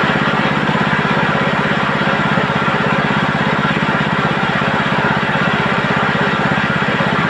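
Chicken-plucking machine running steadily, its motor giving a fast, even pulse under a noisy whir from the spinning plucker drum.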